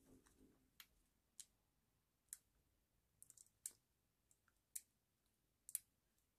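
Faint, irregular small clicks and ticks, a dozen or so, as fingernails pick at a piece of paper to peel a layer off its backing.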